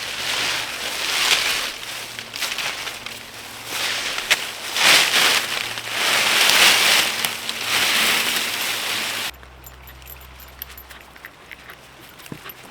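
Rustling and crunching of dry leaves and brush on the forest floor as a log is carried through the woods, swelling and easing for about nine seconds, then cutting off abruptly to quieter surroundings with faint clicks.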